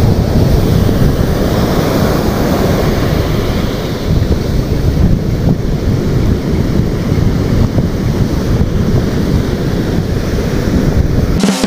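Ocean surf breaking and washing up a sandy beach, with strong wind buffeting the microphone as a heavy, steady low rumble, until it cuts off abruptly at the very end.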